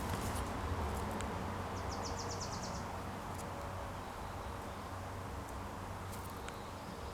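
Songbird calls in a garden: a rapid high trill of about ten notes about two seconds in, and a few short high chips, over steady low background noise.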